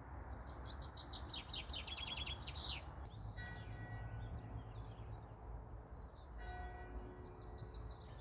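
A songbird sings a quick run of high notes that speeds up and falls in pitch, ending about three seconds in. Then a distant church bell tolls twice, about three seconds apart, each stroke ringing on.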